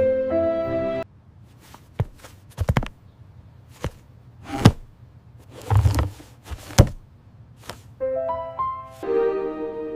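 Gentle music breaks off about a second in, followed by a run of irregular knocks and thuds, some in quick clusters of two or three. The music comes back near the end.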